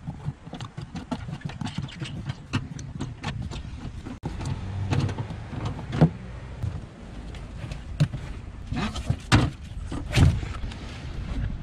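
Handling noise in a car trunk: a hardboard floor panel and its carpet lining being pulled at and lifted, with many small clicks and knocks and several louder thumps in the second half as the panel comes up off the spare-tire well.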